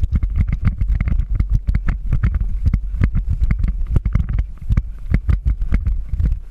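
Quick, uneven thumps and knocks, several a second, over a steady low rumble: the handling noise of a body-worn action camera as its wearer moves quickly.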